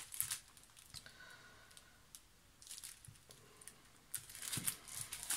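Faint rustling and crinkling of a thin plastic packaging sleeve as hands press and smooth it on a table, with a few small taps; the rustling comes in short bursts and grows louder near the end.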